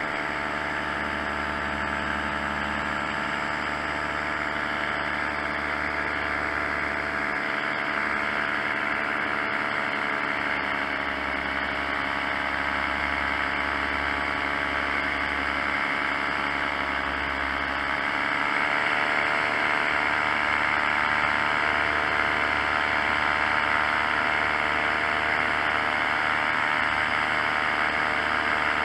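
Paramotor engine and propeller running steadily in flight over a constant rushing hiss. The engine's pitch sags slightly and recovers twice, and the sound grows a little louder in the last third.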